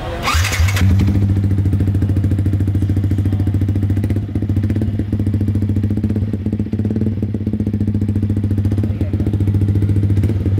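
Yamaha R15 V3's 155 cc single-cylinder engine being electric-started and catching within a second, then idling steadily through a freshly fitted Daytona aftermarket exhaust.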